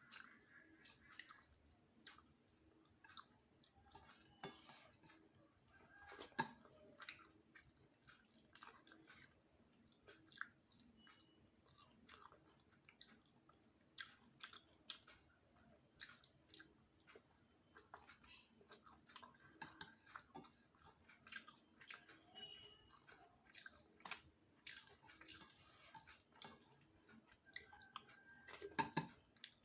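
Quiet, close-up sounds of a person eating rice and fish: irregular wet chewing, lip smacks and mouth clicks, with a louder cluster of them near the end.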